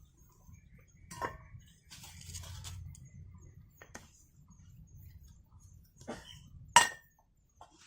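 Scattered clicks and light knocks of metal cookware being handled, with one sharp ringing metallic clink about seven seconds in.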